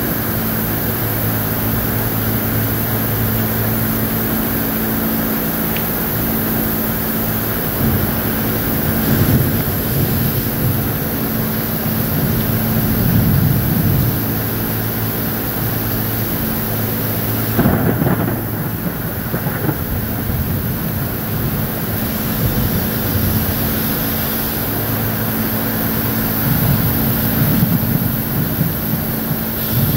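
Heavy thunderstorm rain pouring steadily, with low thunder rumbles swelling a few times and one sharper crack about halfway through. Underneath runs a steady low machine hum.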